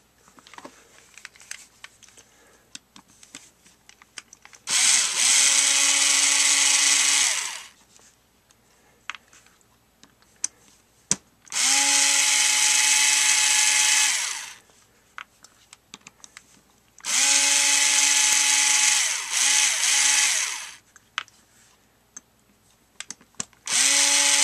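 Ryobi cordless drill/driver backing out the small screws that hold the back cover on a two-stroke trimmer carburetor: four separate runs of about three seconds each, each winding up and then down, the last still running at the end. Light clicks of handling the part and driver come between the runs.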